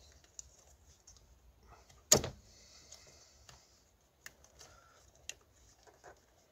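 Plastic clicking and rustling as a plastic connector frame is worked into a rubber wiring boot on a car door pillar: one sharp click about two seconds in, then a few fainter clicks.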